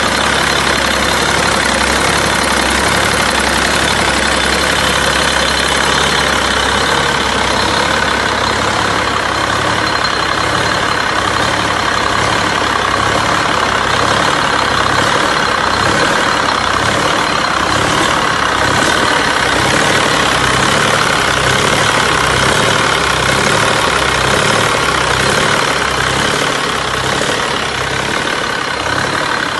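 A large engine idling steadily, with a regular low pulse.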